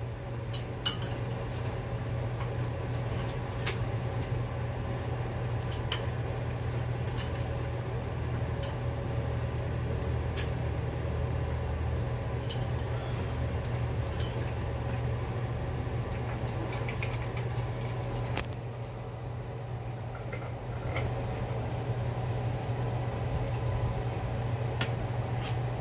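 Light clinks and taps now and then, about a dozen in all, the kind a macaw's beak and feet make against stainless steel bowls on its perch stand, over a steady low machine hum.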